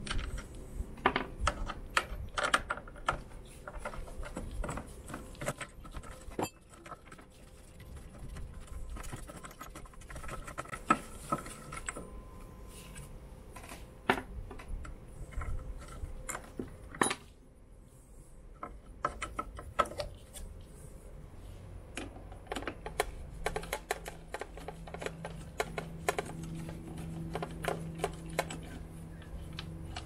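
Small metal clicks and clinks from a tubular spanner and the chain adjuster parts of a Yamaha TDM 850 swingarm as the adjuster is undone and its plate taken off, irregular and scattered. A low steady hum joins in during the last third.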